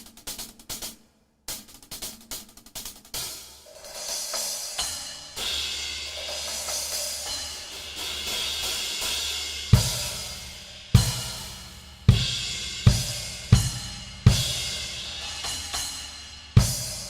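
Arborea Ghost cymbals played on a drum kit. Quick light hi-hat and cymbal strokes come first, then a sustained ringing wash of ride or crash cymbal. From about ten seconds in come seven loud crash accents, each with a bass drum hit and each left ringing out.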